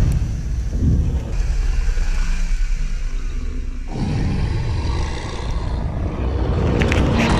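Off-road 4x4 engines revving hard under load as the vehicles force through dust and then through deep mud, picked up close to the vehicles. The sound changes abruptly about four seconds in, where a Suzuki Jimny is pushing along a mud rut.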